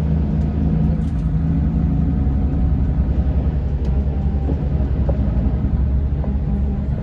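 Scania K410 coach's 13-litre inline-six diesel engine running steadily with a low, even drone. The upper engine tones are strongest for the first two seconds and then ease slightly.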